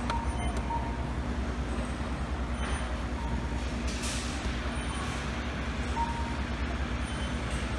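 Steady whooshing hum of electric fans running, with a few faint short beeps.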